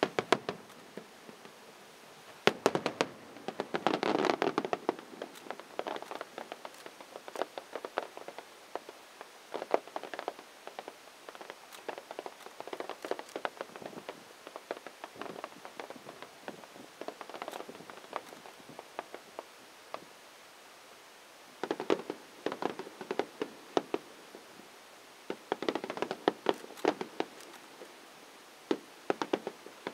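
Fireworks display: rapid pops and crackling reports in dense clusters, going quiet briefly about two-thirds of the way through and then starting up again.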